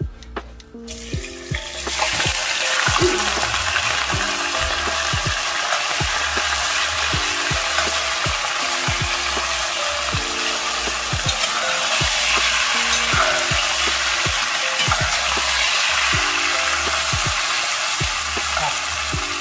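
Strips of ribeye steak dropped into hot oil in a cast-iron Dutch oven, sizzling hard. The hiss starts about a second in and then goes on steadily while the meat is stirred with a metal spatula.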